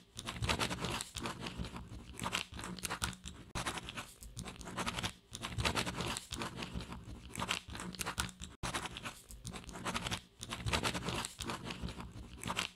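Pen scratching across paper as handwriting is written out, in runs of a second or two with short breaks between them.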